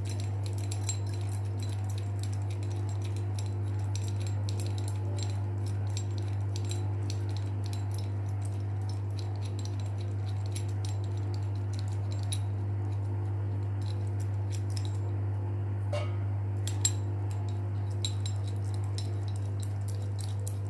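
Light metallic clicks and clinks as a bearing puller is handled and set up on a ceiling fan's shaft, over a steady low hum.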